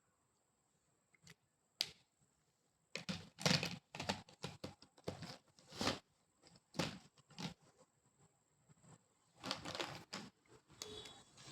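Drawing strokes scratching across paper: a couple of single strokes, then a quick run of short strokes from about three seconds in, a pause, and another cluster near the end.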